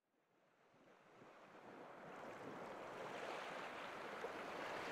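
Ocean surf fading in from silence and growing steadily louder.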